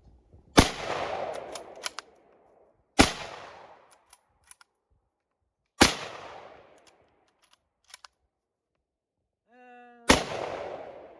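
Four rifle shots from a .243 Winchester firing 100-grain Federal rounds, each with a short echoing tail. The first three come a few seconds apart, and the last comes after a longer pause.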